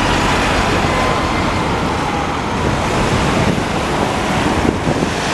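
Steady traffic noise as a single-deck bus drives past close by on a wet street, its tyres hissing on the wet road, with wind rumbling on the microphone.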